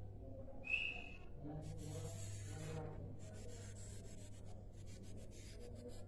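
A caged sikatan londo gives one short whistled note about a second in, then rustling and a run of scratchy clicks follow, over a low steady hum.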